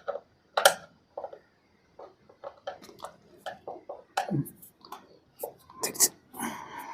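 Hand tools and the plastic air filter cover of a Splendor motorcycle being handled as its screws are undone: a run of irregular small clicks and knocks, with a few louder ones about half a second in and around four and six seconds.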